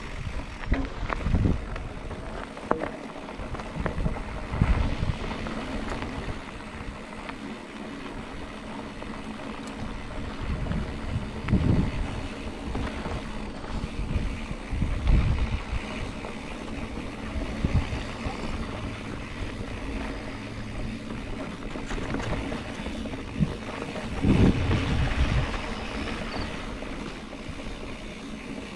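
Mountain bike descending a gravel and dirt trail: tyres rolling and crunching over loose stones, wind rushing over the camera's microphone, and the bike rattling, with several heavy thuds as it hits bumps.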